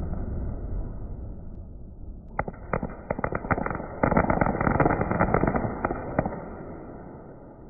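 Fireworks crackling, a quick string of sharp, muffled pops over a low rumble. The pops begin about two and a half seconds in, come thickest in the middle, and thin out near the end.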